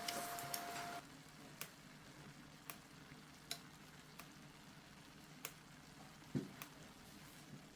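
Food frying in a pan: a faint sizzle with scattered sharp pops about once a second, and a soft thump a little after six seconds in. A louder hiss with a steady hum cuts off about a second in.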